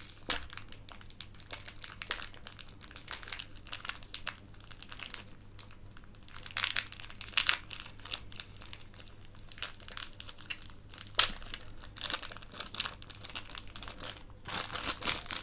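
Clear plastic zip-lock bag crinkling in the hands as it is opened, in irregular crackling rustles with louder bursts a few times.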